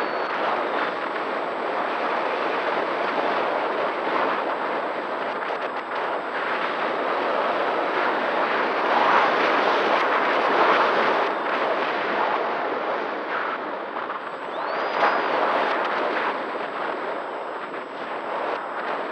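Heavy wind rush buffeting the onboard action camera's microphone on an electric RC flying wing in flight, with a faint steady motor-and-propeller drone underneath. The rush swells in the middle, and a brief rising whine comes in near the end.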